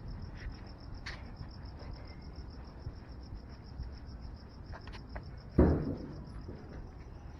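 Crickets chirping in a steady, rapidly pulsed high trill, with one sudden loud thump about three-quarters of the way through.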